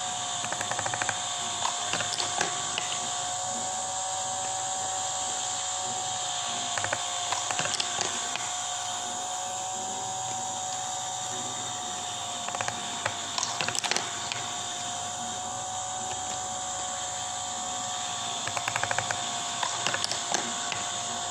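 Steady whirring of a toy car's wind-up spring motor driving a marble-run wheel, with short bursts of rapid clicking every few seconds.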